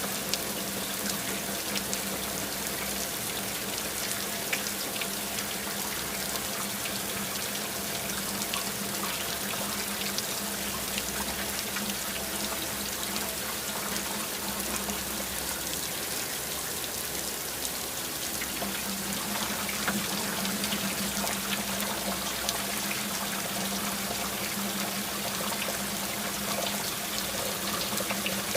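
Steady rain falling: a continuous hiss of water with many small drops ticking through it, over a low steady hum.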